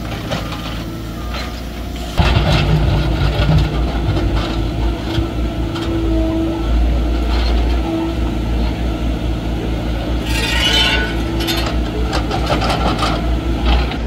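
Diesel engines of a backhoe loader and a dump truck running, louder from about two seconds in, with scattered knocks and a short noisy burst about ten seconds in.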